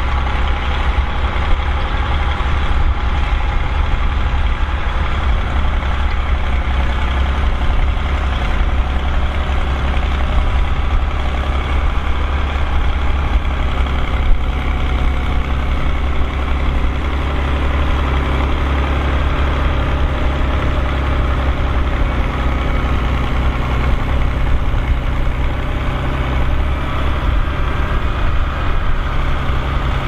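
Fiatagri 110-90 tractor's diesel engine running steadily under load while pulling a plough through the soil.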